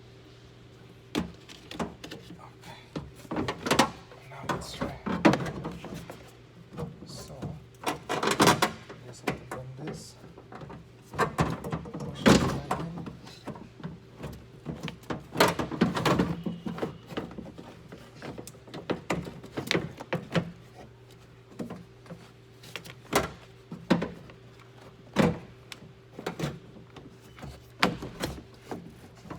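Irregular knocks, clunks and clicks of a car door lock actuator and latch being worked by hand into the door shell, under a steady low hum.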